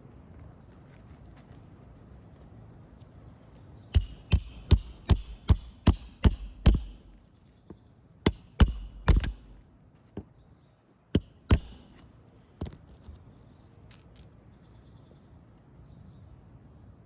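Hammer blows on a shingle roof, driving roofing nails. A quick run of about eight strikes is followed by three more and then two, each with a faint metallic ring.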